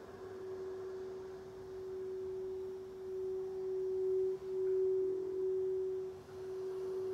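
Frosted quartz crystal singing bowl sung by rubbing a wand around its rim: one steady, pure ringing tone that swells louder through the middle, with a couple of brief dips as the wand moves.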